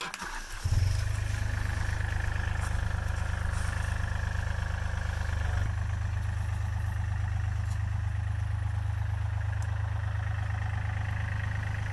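Takeuchi TB235 compact excavator's diesel engine starting up under a second in, then running steadily at idle.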